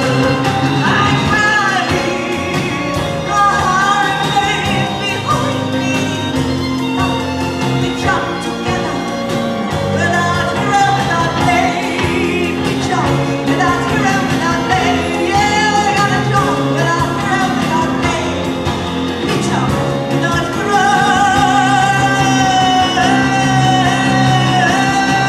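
A woman singing into a microphone with a live band accompanying her. Near the end she holds long notes with a wide vibrato, and the music grows louder.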